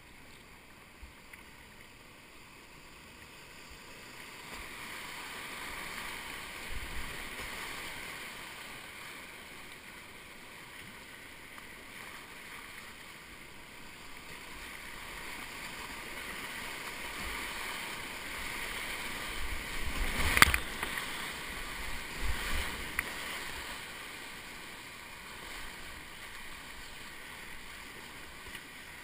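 Whitewater rapids rushing around a kayak, the water noise swelling a few seconds in. About two-thirds of the way through comes a sudden sharp thump against the boat, the loudest moment, followed by a few smaller hits.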